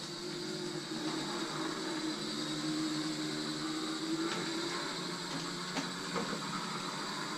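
24 V DC electric motor of a homemade RC lawn mower running with a steady whine and hiss; its hum shifts about four seconds in, with a couple of sharp clicks around then and near six seconds.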